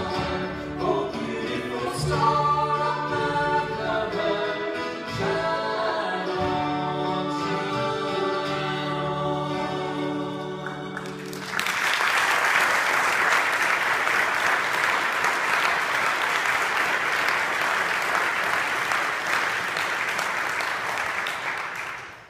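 A small acoustic gospel band of fiddle, mandolin, guitars and bass with singers plays the closing bars of a song and ends on a held chord. About eleven seconds in, the congregation breaks into applause that lasts about ten seconds.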